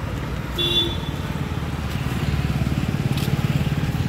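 Motor vehicle engine running close by, a low rumble with a fast even pulse that grows louder about two seconds in. A short high tone sounds about half a second in.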